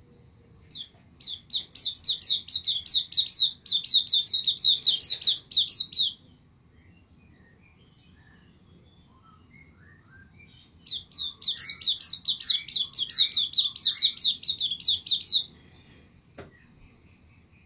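White-eye (pleci) singing two long bursts of rapid, high repeated notes, about four a second, each burst lasting around five seconds with a pause between.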